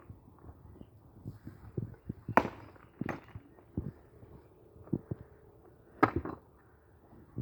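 Hand work on a building site: irregular sharp knocks and clacks of tools or materials being struck. There are three loud cracks, about two and a half, three and six seconds in, with softer knocks between them.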